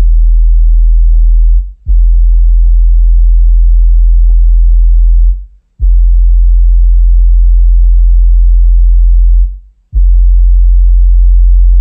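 Auna 30 cm paper-cone subwoofer in a ported box playing a very loud, deep sine test tone around 40 Hz inside a car cabin. The tone comes in bursts of about three and a half seconds and cuts out briefly three times. A fainter buzz rides over it.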